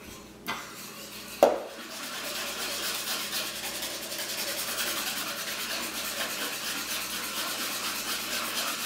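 A utensil stirring and scraping fast around the inside of a stainless steel mixing bowl, hand-mixing a shake; about a second and a half in it strikes the bowl once with a loud clang, then the scraping goes on steadily.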